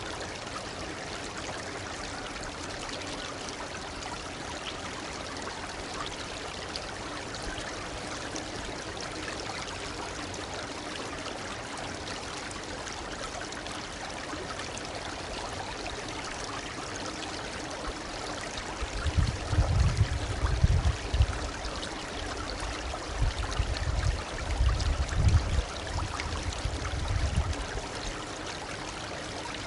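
Shallow stream babbling and trickling steadily. About two-thirds of the way through, several seconds of irregular low rumbling come and go over it.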